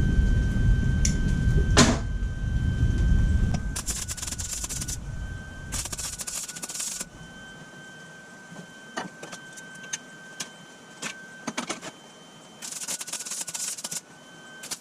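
Low rumble of thunder that fades away over the first few seconds, then three short bursts of crackling from a Lincoln Electric 140 MIG welder laying tack welds with shielding gas, each lasting about a second, with a few single clicks between them.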